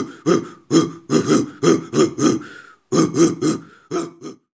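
A voice giving a rapid run of short 'boo'-like calls, about three a second in clusters. The calls stop suddenly a little before the end.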